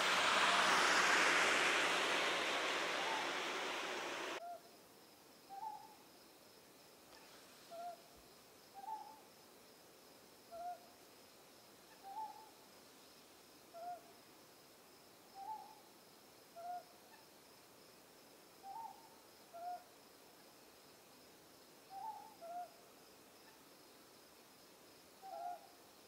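A loud, even rushing noise cuts off abruptly about four seconds in. It gives way to a Ryukyu scops owl calling: short hoots about every one and a half seconds, alternating between a higher and a lower note.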